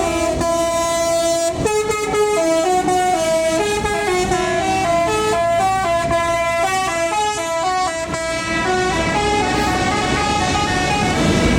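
Bus 'telolet' basuri horn playing a melody: a long run of short stepped notes in two parallel voices.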